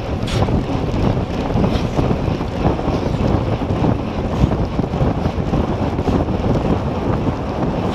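Heavy wind rushing and buffeting over the microphone of a camera on a road bike sprinting at about 50 km/h, a loud, unsteady rumble.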